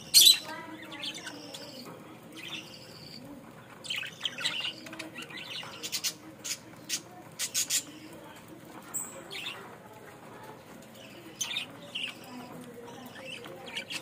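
A flock of caged budgerigars chattering and chirping, with sharp squawks. The loudest comes right at the start, and a run of short sharp calls follows about six to eight seconds in, with some wing flutter among the birds.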